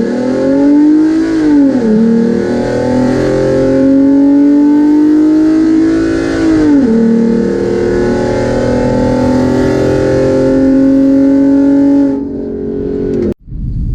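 Car engine at full throttle accelerating down a drag strip, its pitch climbing through the gears with two upshifts where it drops back, about 2 and 7 seconds in. Near the end it lets off, and the sound cuts off abruptly.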